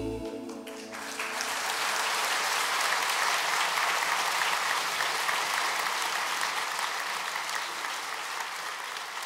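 Concert audience applauding, starting about a second in as the choir's last held chord dies away, then slowly fading.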